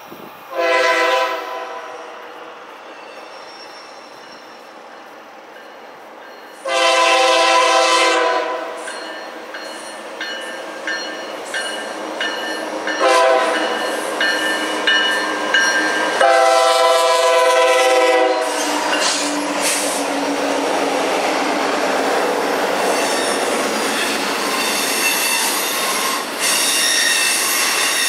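GE Dash 9-44CW freight locomotive sounding its multi-chime horn in four blasts, the second and fourth long and the third short, in the grade-crossing pattern. Then the locomotives pass with a loud diesel rumble, and autorack cars roll by with steady wheel noise and squealing.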